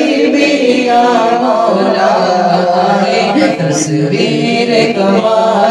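Men singing an Urdu naat in a chanting style into a microphone, the melody carried by voices alone.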